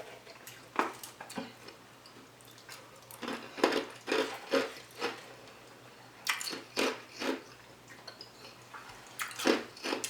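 Ice being bitten and crunched close to the microphone, in irregular clusters of short, sharp crackles with pauses between them.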